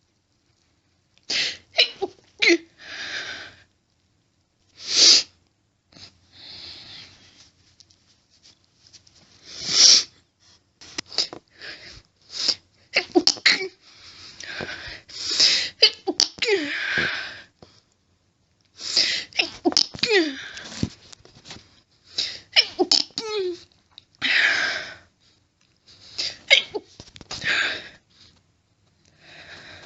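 A woman's stifled sneezes in a rapid fit: short, sharp bursts in quick clusters of several, separated by brief pauses and fainter breathy sounds.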